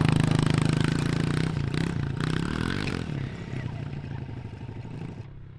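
Pit bike engine running close by, then fading steadily as the bike rides away. Its pitch wavers with throttle changes about two to three seconds in.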